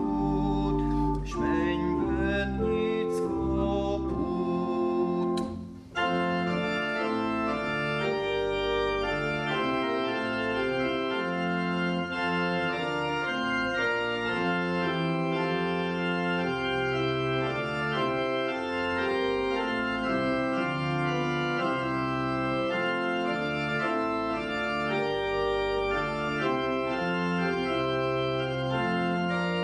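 A man sings the closing line of a Hungarian hymn over church organ accompaniment, his voice ending about six seconds in; the organ then plays on alone in slow, held chords.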